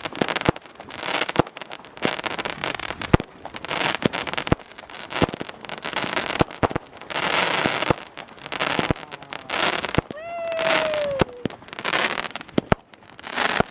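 Consumer fireworks going off: a string of sharp bangs and pops mixed with longer crackling bursts, with a brief falling pitched tone about ten seconds in.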